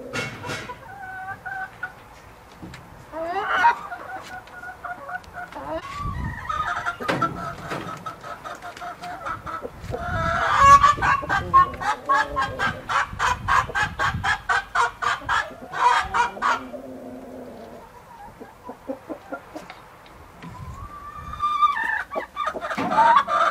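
Chickens clucking and cackling, with a long run of fast, even clucks, about five a second, around the middle.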